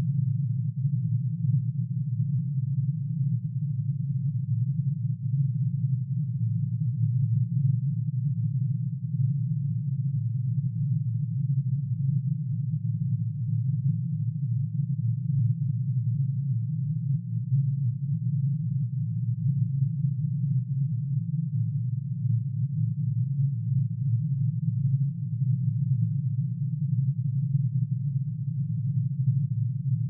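Synthesized low hum made of many sine waves added together, one for each line of curium's atomic emission spectrum, pitch-shifted down into the audible range. It is a steady, dense cluster of low tones with a rapid flutter in its loudness.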